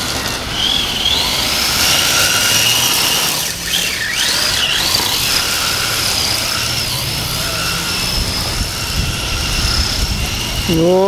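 Radio-controlled drift car's high-pitched drivetrain whine, sliding up and down in pitch as the throttle is worked, with a couple of quick swoops about four to five seconds in.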